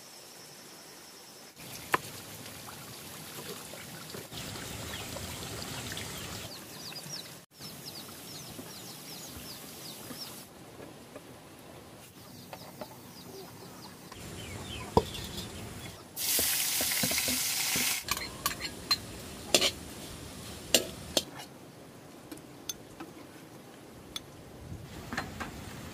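A run of short cooking sounds that change abruptly every few seconds: food sizzling and frying in a pan, stirring, and knocks and clinks of utensils. The loudest part is a hissing sizzle lasting about two seconds, about sixteen seconds in, followed by a series of sharp knocks.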